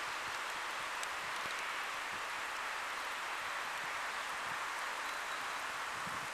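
Steady hiss of falling rain, even throughout, with a few faint ticks.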